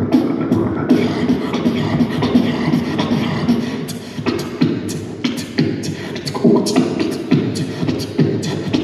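Beatboxer performing live through a handheld microphone and PA speakers: rhythmic mouth percussion, sharp kick and snare strikes about twice a second, over a hummed bass line.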